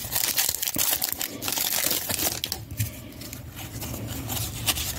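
Green foil trading-card pack crinkling as it is torn open, then softer rustling of the cards inside being slid out and handled.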